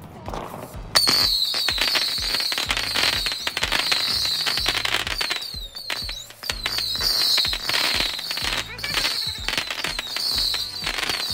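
Ground-launched consumer firework going off, starting suddenly about a second in: rapid crackling and popping with a high wavering whistle that repeats with short breaks as sparks shoot upward. Background music with a steady beat runs underneath.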